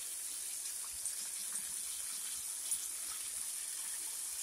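Catfish pieces deep-frying in hot oil in a small pot: a steady high sizzle with scattered small pops and crackles.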